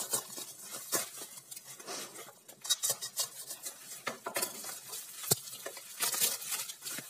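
Plastic bubble wrap crinkling and rustling in short crackles as it is cut with a utility knife and peeled off a cardboard box, with one sharp click about five seconds in.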